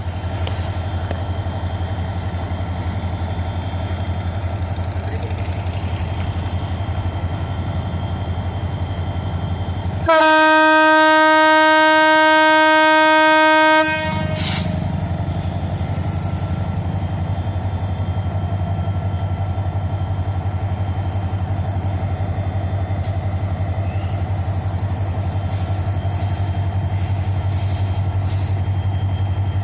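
CC 205 diesel-electric locomotive engine running with a steady low drone, and about ten seconds in a single loud horn blast of about four seconds that cuts off sharply. The blast is the S35 horn signal, the driver's warning that the train is about to move off.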